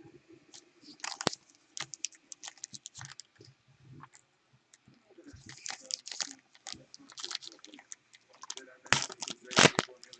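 Trading cards and their plastic packaging being handled: irregular crinkling and crackling, with the loudest crackles near the end.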